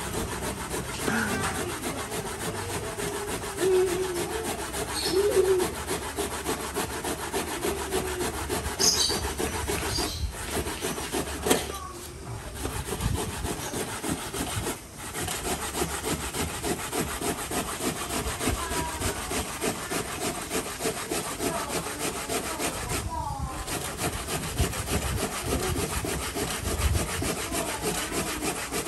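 Fresh coconut being grated by hand on a flat metal grater: a steady run of quick rasping strokes, pausing briefly now and then.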